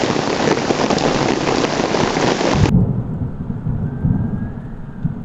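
Heavy rain falling. About two and a half seconds in, the sound cuts abruptly to a low rumble of thunder.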